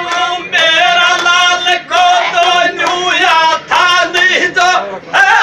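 Men singing a Gujjar dhamal folk song in long held phrases, breaking briefly between lines, with a large hand-held frame drum struck in a regular beat under the voices.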